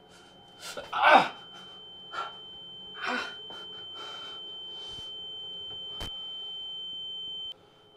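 A high, steady ringing tone holds through, with a man's sharp gasp about a second in and a few more heavy breaths after it. A single click comes about six seconds in, and the tone drops out briefly near the end.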